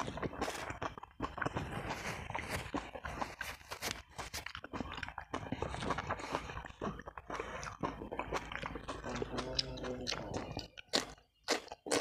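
Close-miked chewing of sambal-coated chicken, a dense run of small wet clicks and crackles from the mouth, with a brief pause near the end.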